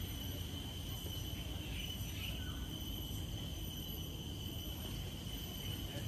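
Steady high-pitched insect drone from tropical woodland over a low background rumble, with a few faint chirps about two seconds in.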